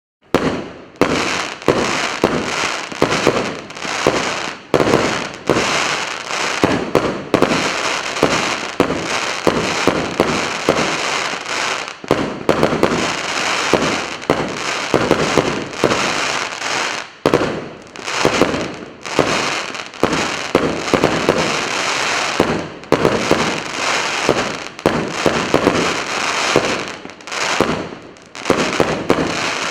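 'Tsvetopredstavlenie' firework cake of 100 one-inch shots firing in rapid succession: a dense, continuous stream of launch thumps and bursts with crackle. It starts abruptly just after the beginning.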